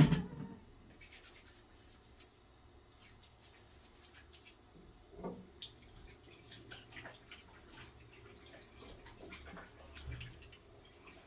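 Hands being washed at a small bathroom sink: faint splashing and dripping from the tap, with hands rubbing and scattered small ticks and knocks. A short louder sound comes right at the start.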